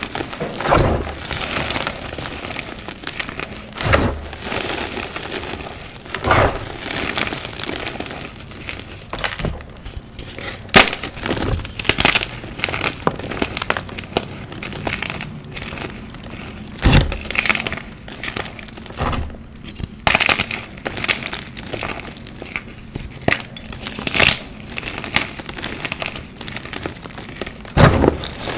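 Dyed gym chalk crushed and crumbled by hand: dry crunching and crackling as chunks break apart into powder, with sharp snaps at irregular moments.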